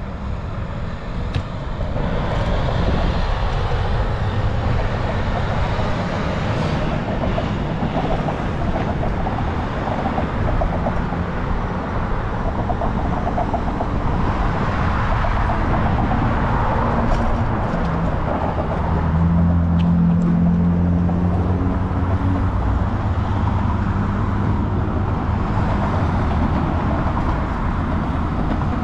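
Road traffic on a city street heard from a moving bicycle: a steady rumble of passing cars, with a heavier vehicle's low hum swelling and fading about two-thirds of the way through.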